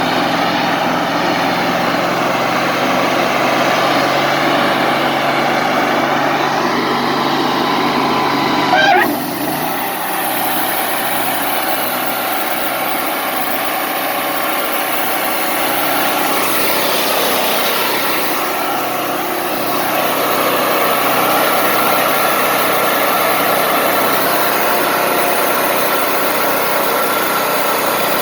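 Wood-Mizer LT40 Wide sawmill running steadily with a continuous mechanical drone. About nine seconds in there is a brief sharp sound, and the noise then changes abruptly to a thinner, hissier sound.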